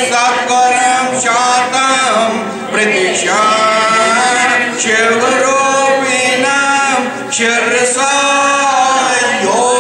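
A small group chanting Sanskrit devotional verses together in a melodic recitation, with a man's voice the most prominent. The lines are held on long sung notes, with two short breaths between lines.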